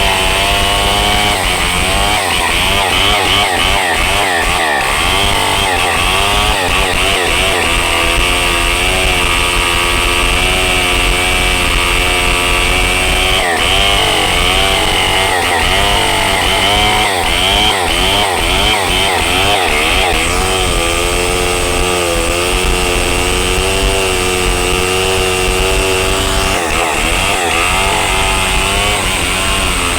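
Two-stroke chainsaw running hard while cutting into the trunk of a large rain tree, its engine pitch wavering up and down as the load in the cut changes.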